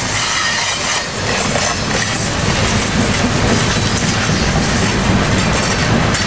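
Freight train of refrigerated boxcars rolling past close by, a steady loud rumble with the clatter of steel wheels over the rails, a little louder from about a second in.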